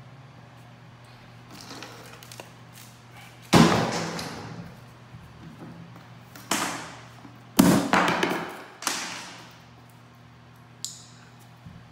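Wooden carpet tack strips and a claw hammer knocking against a hardwood floor as they are laid down: four loud knocks a second or more apart, each ringing briefly, and a light tap near the end.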